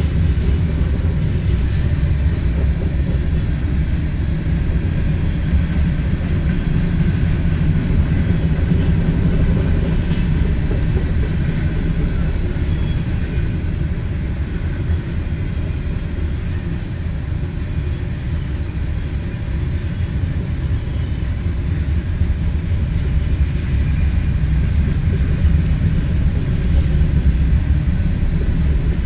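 Freight train of boxcars and covered hoppers rolling past, a steady low rumble of wheels on rail, heard from inside a car.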